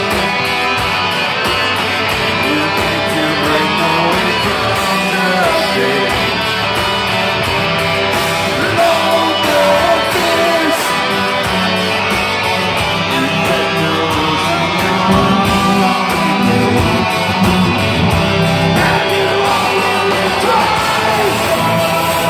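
Live metal band playing an instrumental passage: electric guitars over bass and drums, loud and unbroken.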